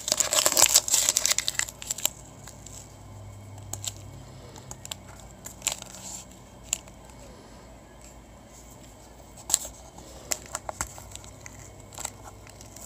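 Blue painter's tape being peeled and torn off a stack of plastic card toploaders: a burst of crackly tearing in the first two seconds, then quieter handling with a few scattered clicks.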